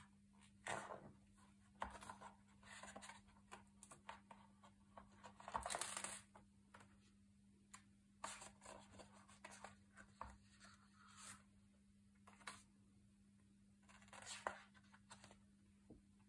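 Soft paper rustles and slides as the thick pages of a hardcover photo book are handled, smoothed flat and turned. The noises come in short bursts, the loudest about five to six seconds in, with another page turning near the end.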